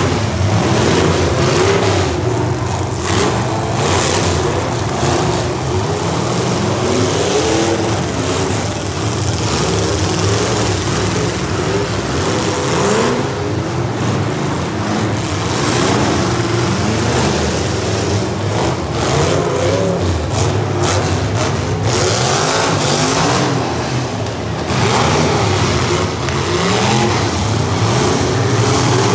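Several modified full-size demolition derby cars' engines running hard and revving, their pitch rising and falling over and over as the cars accelerate, with sharp bursts of noise here and there.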